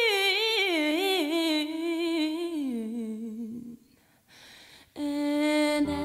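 A single unaccompanied voice singing a long held note that wobbles and slides downward in a run, stopping about three and a half seconds in. After a short pause it starts a lower held note near the end.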